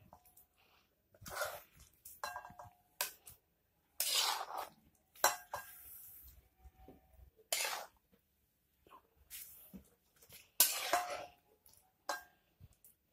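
Metal spoon scraping around a wok-like cooking pan and clinking against a glass bowl as thick chicken curry is spooned out: about ten irregular scrapes and clinks, several ringing briefly.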